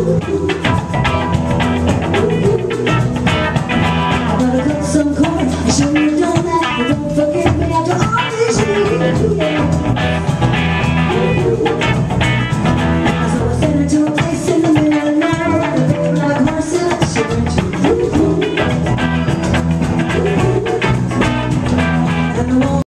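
Live rock band performing: a woman singing lead over electric guitar and a drum kit, the music loud and unbroken.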